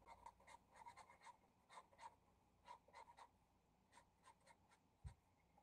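Faint scratching of a Posca acrylic paint marker's tip on paper in many quick, short, irregular strokes as it colours in an area, with one soft low thump about five seconds in.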